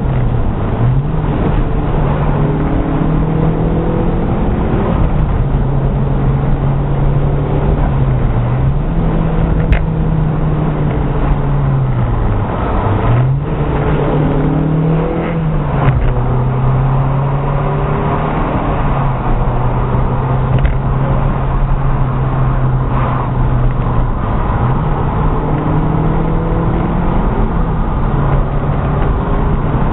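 Renault Clio 197's 2.0-litre four-cylinder engine heard from inside the cabin while driving briskly, its note climbing as it accelerates and dropping back several times, over steady tyre and road noise.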